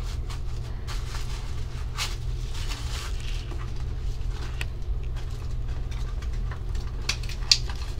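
Tissue paper and a small foil-and-plastic toy packet crinkling and rustling in scattered crackles as a blind-pack figure is unwrapped, over a steady low hum.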